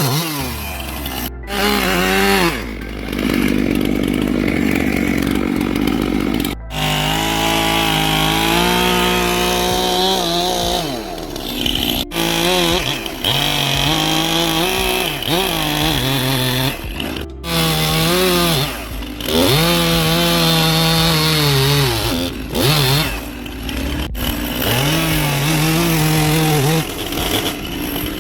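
Chainsaw cutting into wood, its engine revving up and easing off again and again, so the pitch keeps rising and falling. The sound breaks off abruptly several times.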